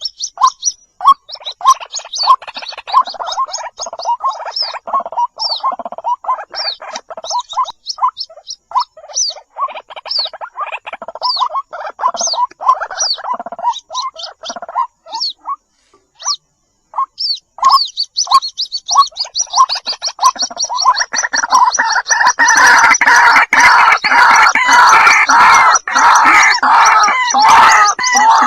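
White-breasted waterhen calls in rapid succession: short repeated croaking notes with sharp higher notes over them. A brief pause comes just past the middle, then a louder, denser run of overlapping gargling calls follows.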